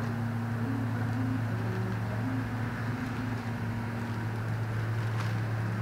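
A steady low hum over a faint even hiss of background noise.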